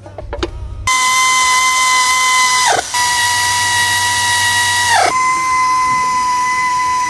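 A handheld power tool's electric motor run three times in quick succession, each run a steady high whine of a couple of seconds that winds down in pitch as the trigger is released.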